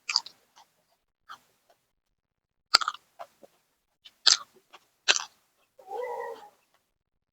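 Crisp crunching of raw vegetables bitten and chewed close to the microphone, four or five sharp crunches spread over several seconds. A short closed-mouth "hmm" comes near the end.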